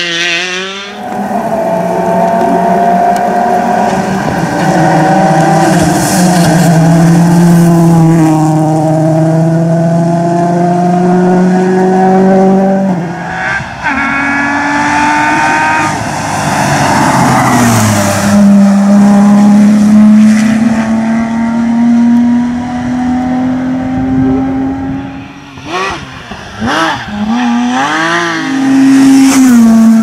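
Rally cars at full throttle, one after another, engines revving high. The pitch climbs and holds, drops at gear changes, and glides down once as a car brakes and downshifts. Near the end come short, quick jumps in engine pitch.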